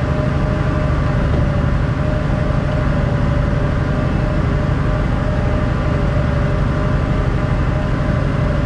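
Car ferry's engines running, a steady low drone with a constant hum above it.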